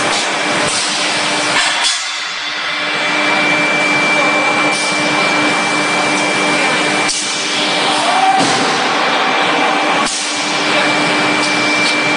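Forging-line machinery running: a loud steady hiss with a constant low hum and a thin high whine, broken by a sharp metallic clank every few seconds.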